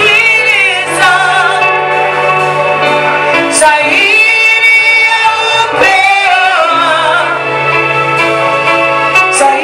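Swahili gospel worship song: voices singing long, wavering held notes over a steady low accompaniment.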